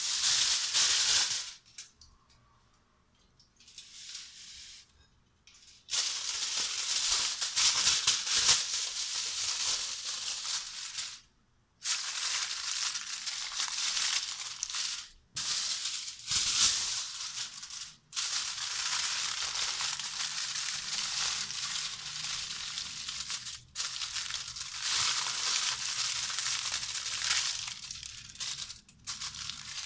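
Aluminium foil crinkling and rustling as it is wrapped and pressed by hand around a round dish. It comes in long stretches with short pauses, and is quieter for a few seconds early on.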